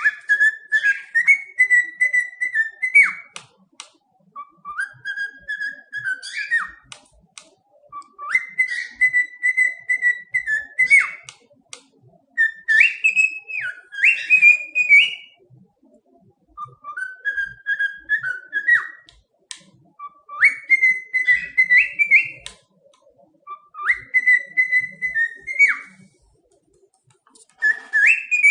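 A whistled phrase repeated about eight times, each a couple of seconds long with short pauses between. Each phrase steps up to a held note and ends with a quick upward flick.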